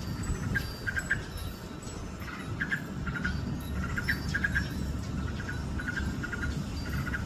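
Birds calling: short clusters of quick, high notes repeated about every half second to a second, over a steady low rumble.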